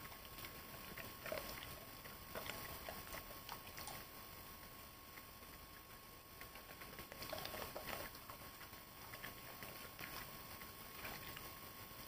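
A Weimaraner eating peanuts off a carpet: faint, scattered crunching and chewing, busier about seven to eight seconds in.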